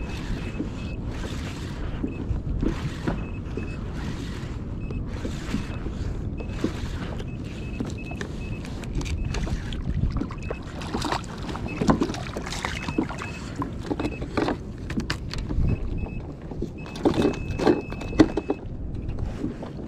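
Sea water sloshing against a fishing kayak's hull in choppy conditions, with a swish every second or so, then sharper knocks and louder splashes near the end. A faint high beep comes and goes.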